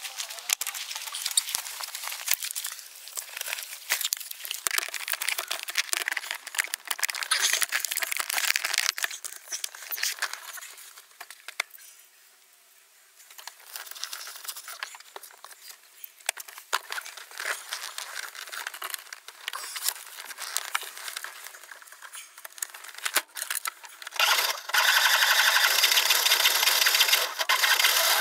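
Irregular clicking and rustling handling noises, with a short quieter lull partway through. About 24 seconds in, a steady, louder rasping noise starts.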